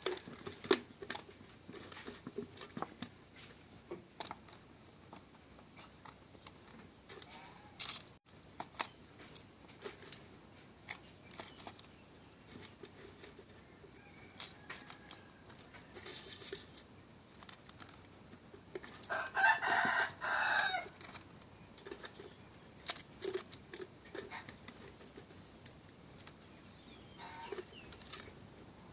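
A rooster crows once, a call of about a second and a half, roughly two-thirds of the way in. Scattered small clicks and knocks run throughout, with a short hiss a few seconds before the crow.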